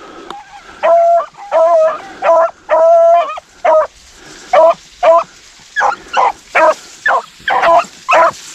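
Rabbit hounds baying as they run a rabbit. There are about fourteen loud calls: drawn-out bawls in the first half, then shorter, choppier barks.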